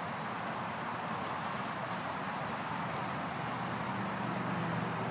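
Steady outdoor background noise, with a low hum joining about four seconds in.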